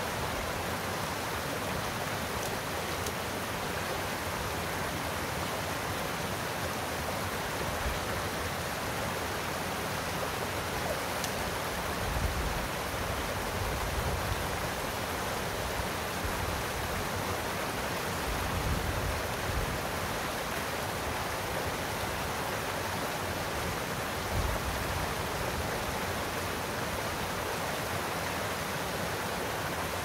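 Steady rushing of a small waterfall and white-water cascade in a rocky stream, with a few brief low rumbles about a third, two thirds and four fifths of the way through.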